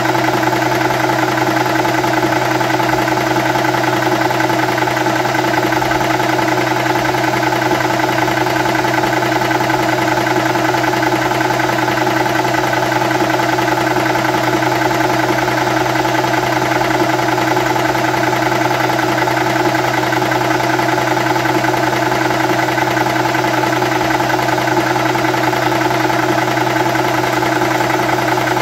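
Wolf 300-bar high-pressure air compressor and its cooling fan running steadily while filling an air rifle, a constant mechanical drone that holds the same pitch and level throughout.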